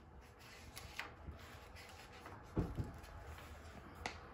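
A picture book being handled: pages turned and paper rustling, with a soft thump a little over halfway through and a sharp click near the end.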